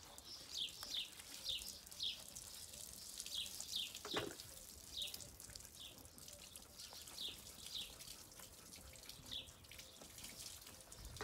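Soapy water poured from a small plastic jug onto a wet dog's coat, trickling and dripping, while a bird chirps again and again with short falling notes. A single knock sounds about four seconds in.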